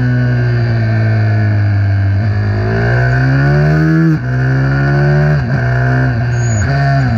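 Small racing minibike engine running hard, its pitch climbing and falling with the throttle, with quick sharp dips in pitch about four times in the second half.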